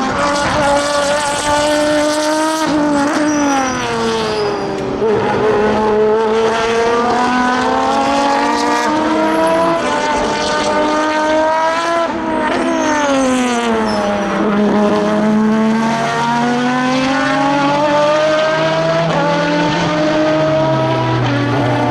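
Aston Martin V12 Vantage GT3's V12 racing engine running hard through an open exhaust. Its note falls twice, a few seconds in and again about halfway, as the car slows, then climbs steadily each time as it accelerates again.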